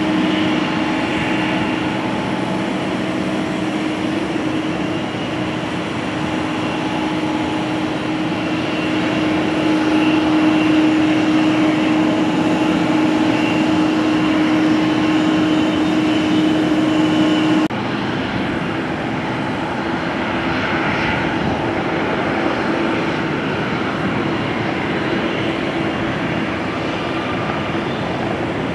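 Boeing 777 jet engines idling on the taxiway: a steady hum with a thin high whine above it. About 18 seconds in the sound changes suddenly to another airliner's engines, a rougher, hissier jet noise with a weaker hum.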